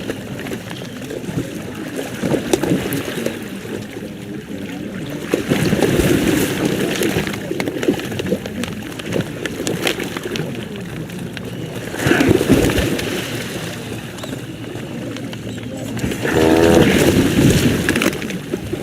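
Great white pelicans making a few low calls, the clearest a pitched, rippling one about two-thirds of the way through, over a steady background of murmur and water noise.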